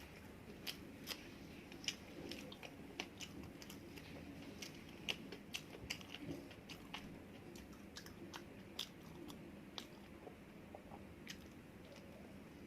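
A person biting and chewing food, with many short sharp mouth clicks at an irregular pace.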